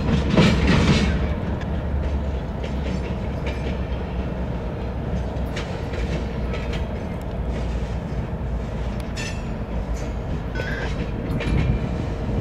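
Freight train of refrigerated boxcars rolling slowly away, with a steady rumble and scattered clicks and clanks from the wheels and couplers. It clatters louder about half a second in, and there is a short high squeal near the end.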